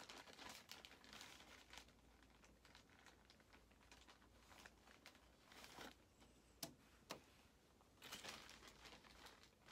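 Faint crinkling and rustling of a clear plastic bag being handled, with two short sharp clicks about two-thirds of the way through.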